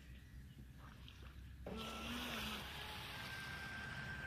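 Electric radio-controlled jet-drive speedboat, running on a 6S LiPo, passing at speed: a hissing rush of water spray and jet wash comes in suddenly about a second and a half in, with a faint high motor whine over it.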